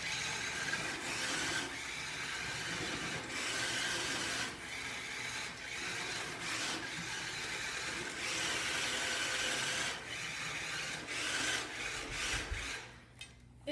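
Toy RC car's small electric motor and gears whirring in bursts, its tape-wrapped tires spinning and scrubbing on the floor with no grip.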